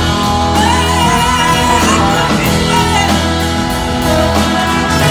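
Live blues-rock band playing in a concert hall: electric guitars, drums and bass, with a lead line that slides and bends in pitch for a couple of seconds near the start.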